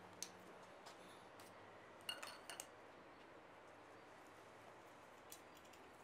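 Near silence: faint room tone with a few small, sharp clicks: one just after the start, a quick cluster of them about two seconds in, and one near the end.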